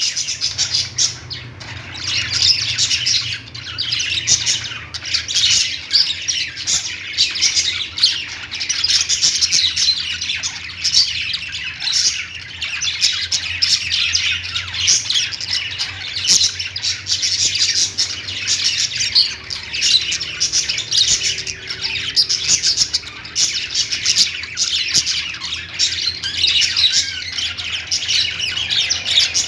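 Pet parakeets chirping and squawking in continuous, busy chatter of short high calls.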